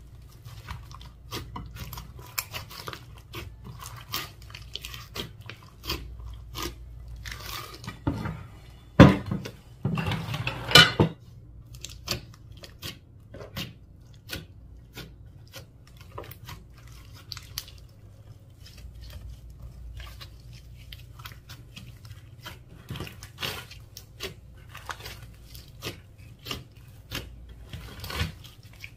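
Slime mixed with mini balls being squeezed and kneaded by hand, giving a dense run of crunchy crackles and small pops. It gets louder for a couple of seconds around the middle.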